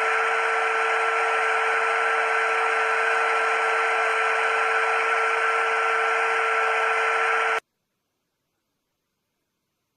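Small electric motor of a homemade miniature vacuum cleaner running at a steady speed with a constant whine, cutting off abruptly about seven and a half seconds in.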